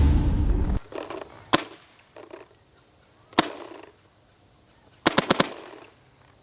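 Empire Mini GS paintball marker firing: one shot, a second shot about two seconds later, then four shots in quick succession. A loud rushing noise cuts off just under a second in.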